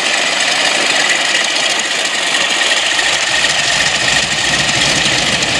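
Boeing Stearman biplane's radial engine running steadily in flight, mixed with a loud, even rush of air over a microphone on the aircraft.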